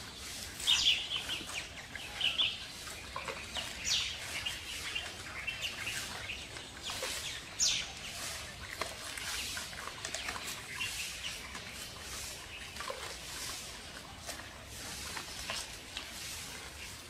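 Giant pandas crunching and snapping bamboo shoots, a steady run of short cracks and chewing clicks, with several short high chirps standing out, the loudest about a second in and near the middle.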